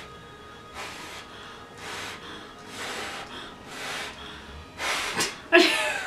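A person blowing out short, hard breaths through pursed lips, about one a second, five in a row. Just after five seconds there is a sharp click and a loud burst of laughter.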